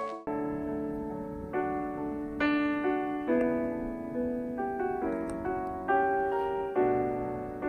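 Background music: a slow solo piano piece of soft sustained chords, a new chord struck about every second and left to fade.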